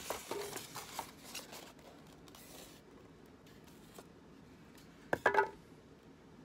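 Styrofoam packaging rubbing and scraping in the hands. About five seconds in the styrofoam halves are pulled apart with a short, loud rubbing squeak.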